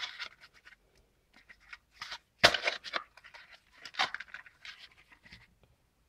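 Scattered scratching and light crunching of a cardboard box of soda ash being handled over a plastic bowl of grated soap, as the soda is added to the powder; a sharper crunch comes about two and a half seconds in and another near four seconds.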